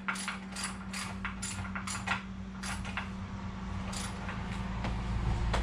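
Sharp metallic clicks, about two or three a second and unevenly spaced, of a ratchet wrench turning a nut down onto the center motor-mount stud of an outboard motor. A steady low hum runs underneath.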